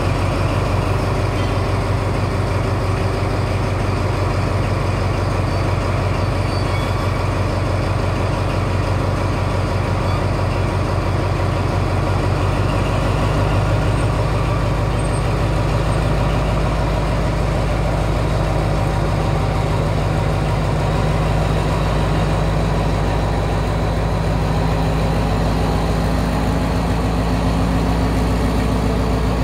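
Alstom AHK diesel-electric locomotive's engine running loudly as it pulls a passenger train away from the station. The engine's pitch steps up about halfway through and again near the end as it speeds up under load.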